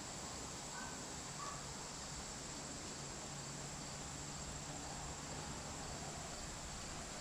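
Steady, high-pitched insect chorus with no breaks, carrying evenly over a quiet outdoor background.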